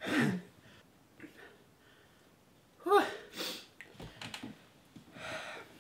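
A man's short vocal sound falling in pitch, then about three seconds in a louder one followed by a sharp breathy gasp, and a long breath out near the end: reactions to a burning mouth and throat after eating Carolina Reaper chilli.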